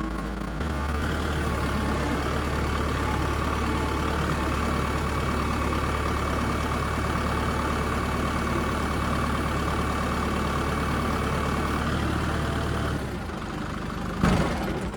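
Tractor engine running at a raised, steady speed with a steady whine over it, easing back to a lower speed about 13 seconds in, then a single knock near the end, as the loader handles a log.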